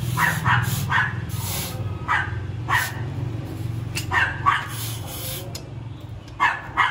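Dog barking repeatedly in short, sharp barks, mostly in pairs, over a steady low hum.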